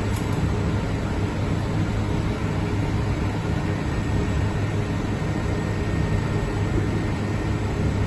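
SunRain 10 kW air-source heat pump outdoor unit running steadily in heating mode just after finishing a defrost cycle: a steady low hum with a broad rush of noise over it.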